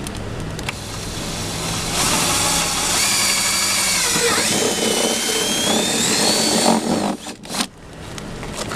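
Electric drill boring a hole: the motor whine sags as the bit bites, then climbs back up, for about five seconds before the drill stops, with a couple of short clicks afterwards.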